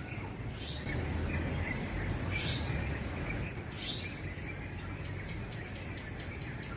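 Birds chirping outdoors, a short call every second or so, with a quick run of faint ticking calls in the second half, over a steady low rumble of background noise.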